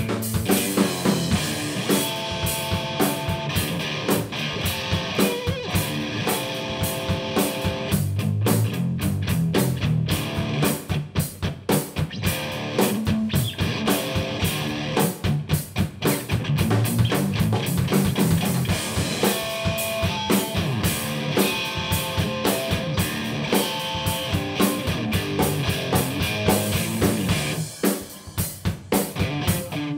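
Instrumental rock jam by a three-piece band: guitar, bass guitar and drum kit playing together to a steady beat, with no vocals.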